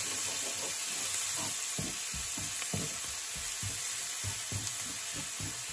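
Chopped onion, garlic and fresh thyme sizzling in melted butter in a hot frying pan, with a steady hiss. A wooden spatula stirring them makes soft repeated knocks and scrapes, about two a second.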